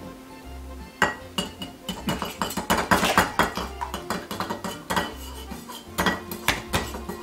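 A fork whisking raw eggs in a ceramic bowl: quick, rapid clinks of metal against the bowl.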